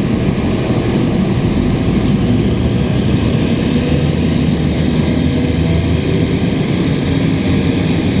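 Cummins ISL straight-six diesel of a 2005 Gillig Phantom transit bus running steadily, heard from on board, with an exhaust leak adding to its note. The bus's air conditioning runs underneath as a steady hiss.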